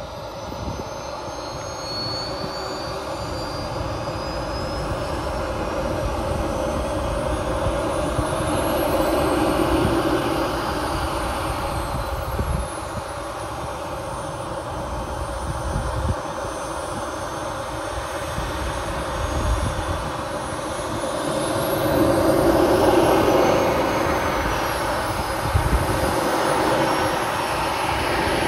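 RC model jet's turbine engine running, its high whine rising and falling twice as the throttle is opened and eased back.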